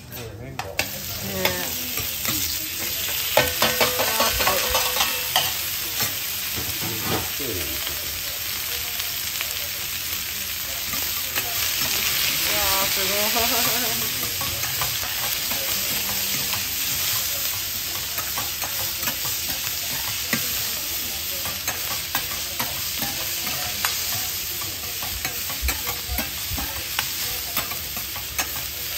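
Cabbage, pork and yakisoba noodles sizzling on a hot iron teppan griddle, growing louder within the first second or two as the food goes on. Metal spatulas scrape and clatter against the griddle as the cabbage and pork are stirred and chopped.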